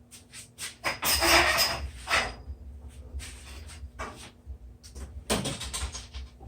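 Tools clattering and knocking as workshop storage is rummaged through in search of a spirit level, with the loudest clatter about a second in and another about five seconds in.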